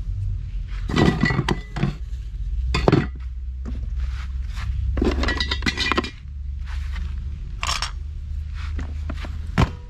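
Cookware and utensils being handled and set down: several bursts of clinking and scraping, with a sharp knock near the end, over a steady low hum.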